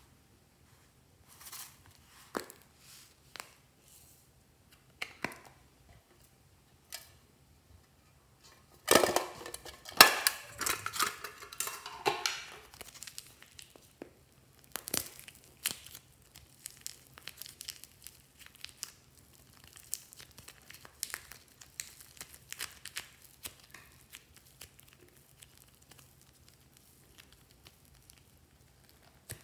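Hands working soft clay and slime out of plastic toy containers: scattered small clicks and handling noises, with a louder, denser run of crackling handling about nine to twelve seconds in.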